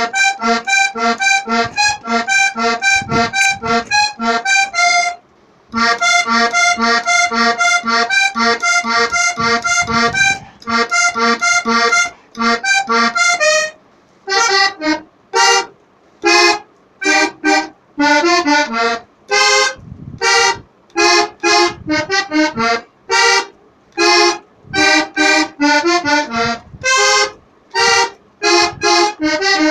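Solo accordion playing a quick run of short, detached notes over a steady bass-and-chord pulse, with a brief stop about five seconds in. From about fourteen seconds the playing breaks into short separate phrases with pauses between them.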